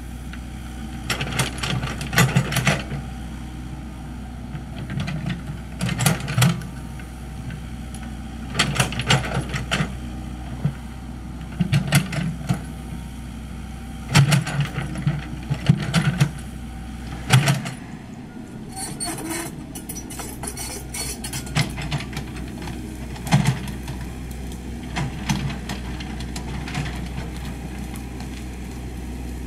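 Komatsu PC78US mini excavator's diesel engine running steadily. Every couple of seconds there are sharp clatters and scrapes as the bucket digs into soil and stones.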